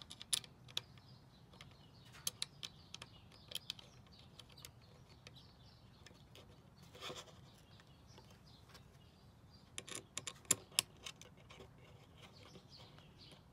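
Small, sharp metal clicks and taps as brass standoffs are threaded by hand into a Raspberry Pi case, scattered irregularly, with a cluster of louder clicks about ten seconds in.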